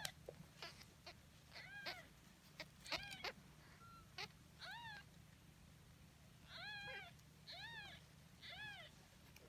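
Newborn kitten mewing: about eight short, thin, high calls, each rising and then falling in pitch, with faint clicks between them.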